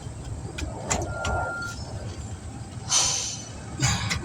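Light metallic clicks, then a couple of short scraping rasps, as the front brake pads and their clips are worked into the caliper bracket by hand. A steady low vehicle rumble runs underneath.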